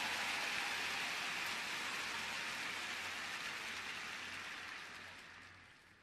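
Arena crowd applauding, a dense steady clapping that dies away over the last second or so.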